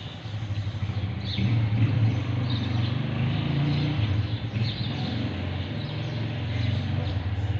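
Steady low rumble of an engine running, with a few faint bird chirps.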